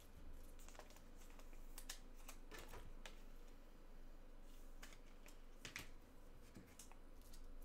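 Faint, irregular clicks and taps from hands working at a desk, a few scattered strokes rather than a steady rhythm.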